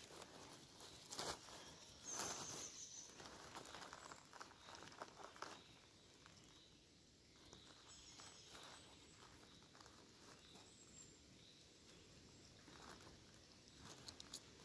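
Faint, irregular footsteps rustling through forest leaf litter, with a quieter stretch in the middle.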